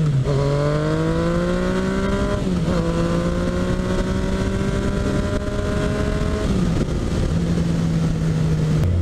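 Yamaha FZ-09's inline three-cylinder engine under way. Its note climbs and drops sharply twice in the first few seconds as it shifts up, then holds a steady cruise. Toward the end the note falls as the throttle is eased off, over a steady rush of wind and road noise.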